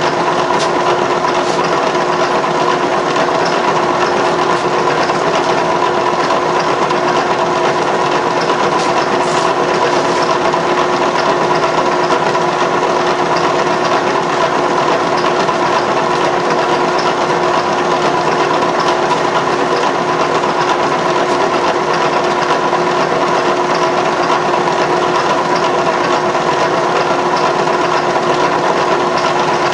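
Vertical milling machine running with its spindle turning at a constant speed, as when picking up an edge with an edge finder: a steady motor hum and whine with a few fixed pitches over a hiss, unchanging throughout.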